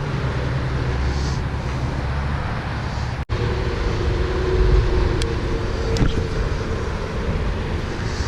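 Steady low outdoor rumble, like distant road traffic, with a faint hum in the middle and a few light clicks. The sound cuts out completely for an instant about three seconds in.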